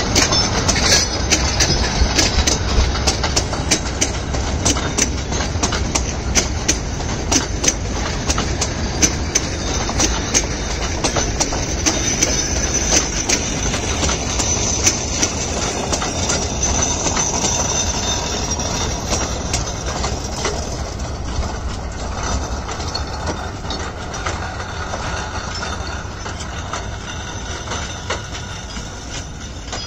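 Bord na Móna narrow-gauge peat wagons rolling past on the track, a steady rumble with rapid irregular clicks and clatter from the wheels. It grows quieter as the train draws away.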